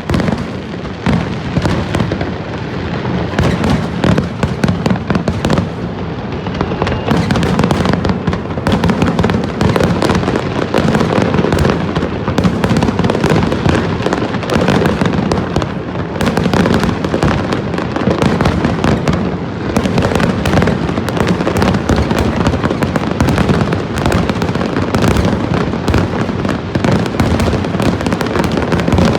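A fireworks display in full swing: dense, continuous bangs and crackling of shells bursting overhead, thickening and getting louder about seven seconds in.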